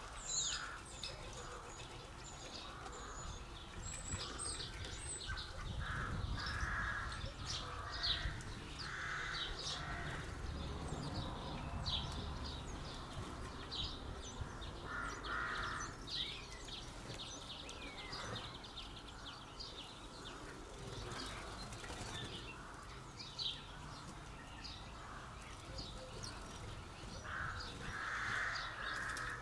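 Garden birds calling: many short, high chirps throughout, with several harsh, rasping calls about a second long in the manner of a crow-family bird.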